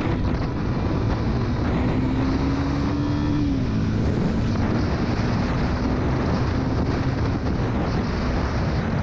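Motorcycle engine running steadily, its pitch rising slightly and settling back about three seconds in.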